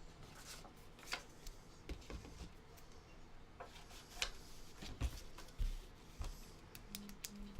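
Basketball trading cards being handled: scattered light rustles, slides and small taps, with a few louder taps in the second half.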